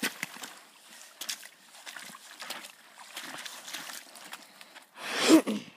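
Boots crunching and cracking thin, already-broken ice over slushy water, in short scattered crackles with faint sloshing. About five seconds in, a loud short shout.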